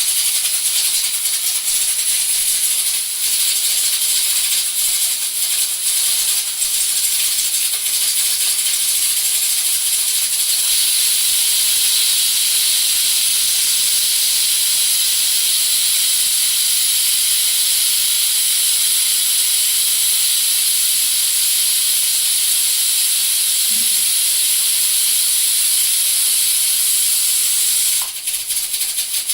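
Prestige pressure cooker whistles releasing steam in a long, loud, steady hiss, the sign that the cookers are at full pressure. The hiss breaks briefly about three seconds in and drops near the end.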